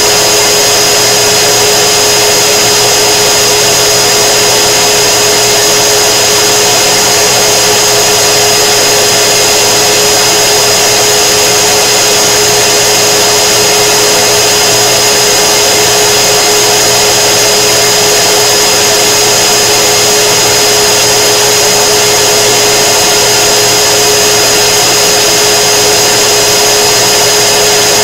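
K-40 laser cutter's exhaust blower and air-assist pump running: a loud, unchanging rushing hum with a steady high whine.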